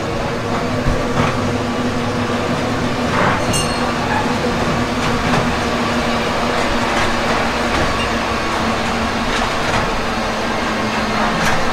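Amusement-park ride train running along its track with a steady rumble and a steady hum. Faint clicks come now and then from the wheels. A brief high-pitched squeak sounds about three and a half seconds in.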